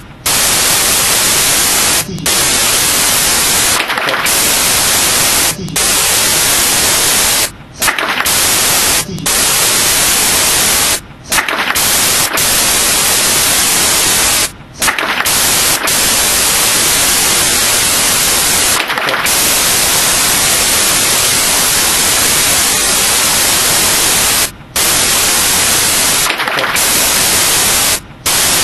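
Loud, steady hiss of static noise, broken by brief dropouts every few seconds.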